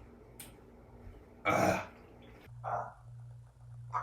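A person clears his throat hard in one loud cough-like burst about one and a half seconds in, then once more, more weakly, a second later: the throat irritated by a mouthful of dry ground cinnamon. A steady low hum starts suddenly about two and a half seconds in.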